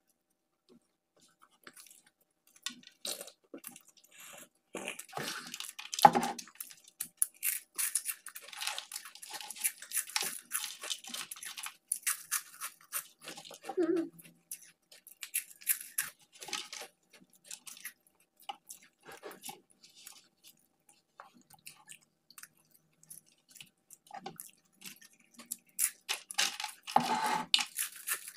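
Close-miked eating: irregular chewing and crunching of fast food, burger and fries, with scattered clicks and rustles. There are louder bursts about six seconds in and again near the end.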